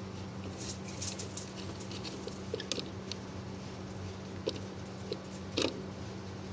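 Steady low electrical hum with light clicks and taps scattered through it, the loudest about two-thirds of the way in.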